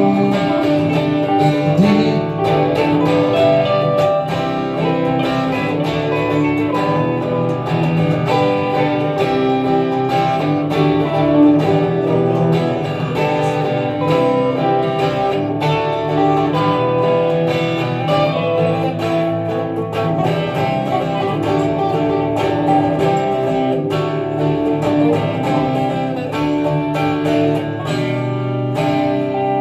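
Instrumental break in a pop-style song: a guitar played steadily with strummed chords and no singing.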